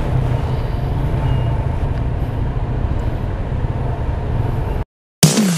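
Motor scooter engine idling steadily while stopped, a low even rumble. Near the end it cuts off abruptly into a moment of silence, then electronic dance music starts.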